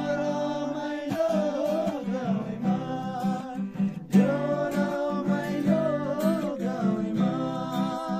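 Music: strummed acoustic guitar keeping a steady beat under a singing voice holding long, wavering notes.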